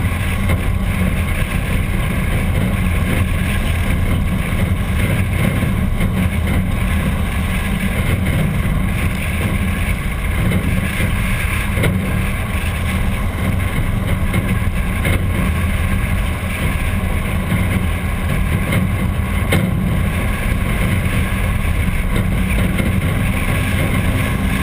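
1951 Packard's straight-eight engine running steadily, picked up by a camera mounted on the hood, with some wind on the microphone.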